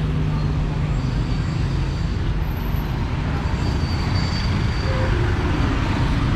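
Steady road traffic noise, with a low engine hum that fades about two seconds in.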